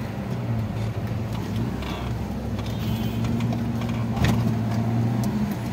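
Vehicle engine running steadily at low speed through street traffic, with a short sharp knock about four seconds in.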